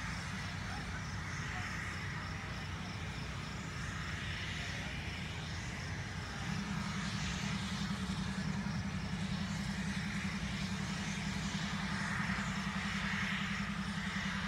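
Diesel locomotive engine running steadily, stepping up to a louder, heavier drone about six seconds in as the throttle is opened.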